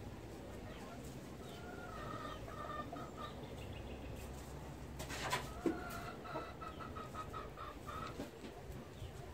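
Fowl clucking: two runs of short, repeated call notes, the second run quicker, with a brief clatter about five seconds in.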